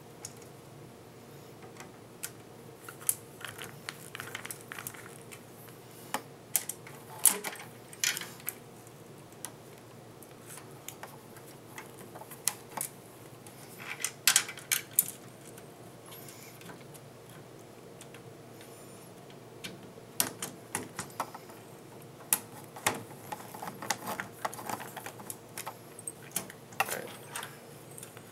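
Scattered clicks, taps and small rattles of a computer cooling fan and its mounting screws being handled, lined up and fitted by hand, coming in irregular clusters.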